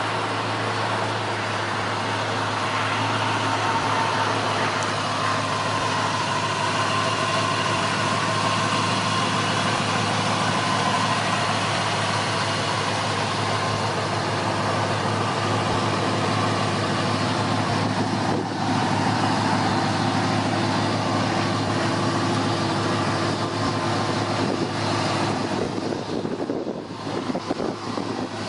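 1979 Pontiac Trans Am's V8 engine running steadily at a constant speed, with a brief dip in level near the end.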